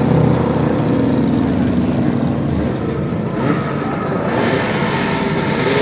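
Racing lawn mower engines running loudly, a dense engine drone with several pitches layered over one another.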